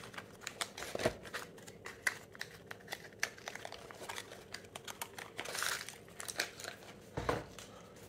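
Clear plastic bearing wrapper and a small cardboard bearing box being handled: a run of small crinkles, crackles and clicks, with a thump about seven seconds in.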